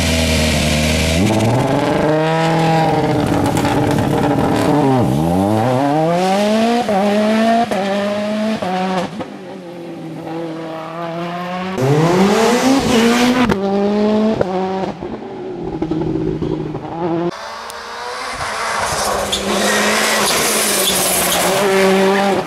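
Citroën C3 WRC rally car's turbocharged four-cylinder engine revving hard through the gears, its pitch climbing and then dropping again and again at each shift and braking point. The car is louder as it passes close and fainter as it moves away.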